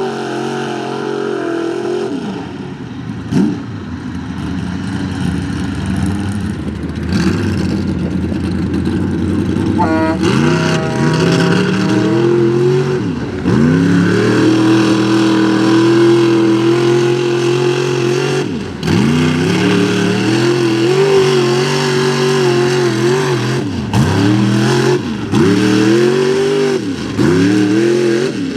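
Mud-bog truck engine revving hard over and over, its pitch climbing and dropping in surges every second or two, held high and steady for a few seconds in the middle.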